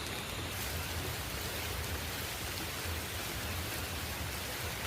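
Steady rain falling, an even hiss without distinct drops or breaks.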